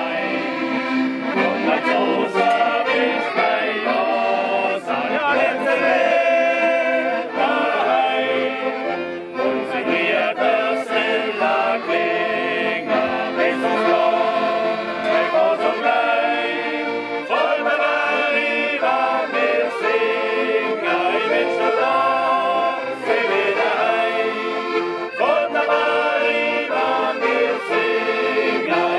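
A group of people singing a song together, accompanied by two accordions.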